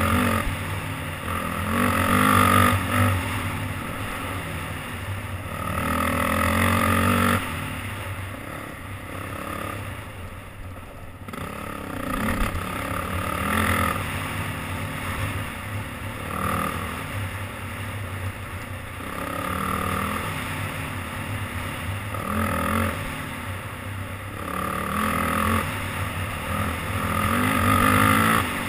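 Quad (ATV) engine ridden along a dirt trail, revving up and easing off again and again with the throttle, heard close up from the rider's helmet.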